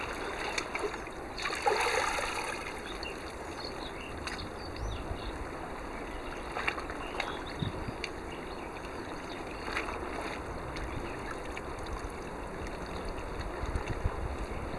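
Sea water lapping and sloshing against a breakwater: a steady wash with scattered small splashes and clicks, louder for a moment about two seconds in.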